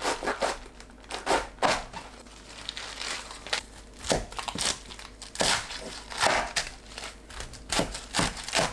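A knife cutting a head of baby napa cabbage into quarters, with crisp crunching and crackling as the blade splits the tightly packed leaves, in uneven strokes.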